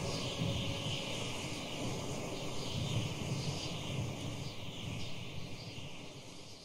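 Outdoor nature ambience: a low, uneven wind-like rumble with faint high chirps, fading out near the end. The last held note of a wind instrument dies away at the very start.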